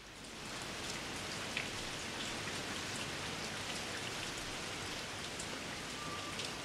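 Steady rain falling, a dense even hiss with scattered drop ticks, fading in over the first second.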